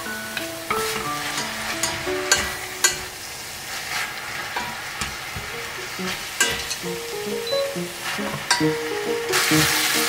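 Beef, eggplant and onion stir-frying in a stainless steel pan: a steady sizzle with the spatula's repeated scrapes and taps against the pan. The hiss grows louder about nine seconds in.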